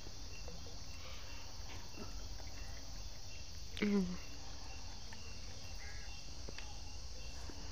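Crickets chirping in a steady, even rhythm over a constant insect hiss, with one brief voice-like sound about four seconds in.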